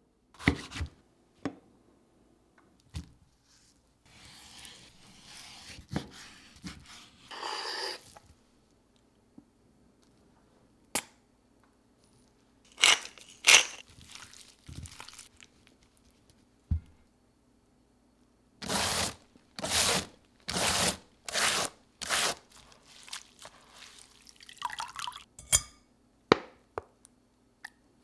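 Kitchen food-preparation sounds: scattered clicks and knocks of utensils and containers, with stretches of handling noise and a run of five crunchy, scraping strokes about two-thirds of the way through.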